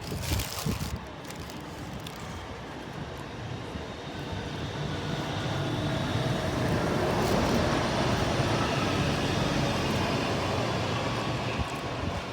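A train moving through the station: a low, steady rumble that swells to its loudest about seven seconds in and then slowly fades. A short noisy burst comes in the first second.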